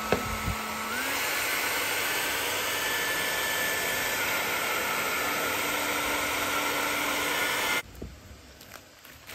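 A 1000 W Panasonic EH-ND11 hand-held hair dryer running, a steady rush of air with a thin motor whine that steps up slightly in pitch and loudness about a second in. A short knock comes just after it starts, and the dryer cuts off abruptly near the end.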